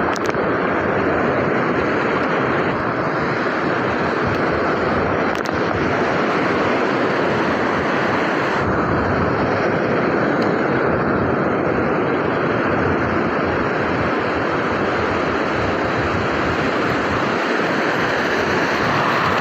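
Ocean surf breaking and washing around the wader's legs: a steady rushing wash of water, with wind buffeting the microphone.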